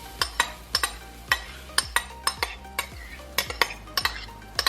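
A metal utensil clinking and scraping against a bowl, working out the last of the banana-and-egg batter into the frying pan. About fifteen irregular sharp clinks, each ringing briefly.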